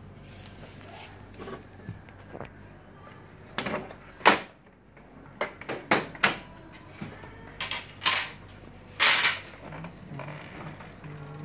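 Plastic covers and parts of a Kyocera M4132/FS6525MFP laser copier being opened and handled during disassembly: a series of separate clicks, knocks and short scraping rasps, the longest rasp about nine seconds in.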